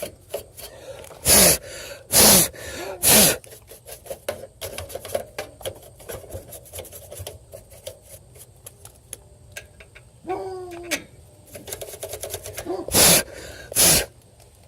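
Short, loud puffs of blowing air, three in quick succession and then two more near the end, blowing dust and spider webs out of an air-conditioner condenser. Light clicking and rattling come between the puffs.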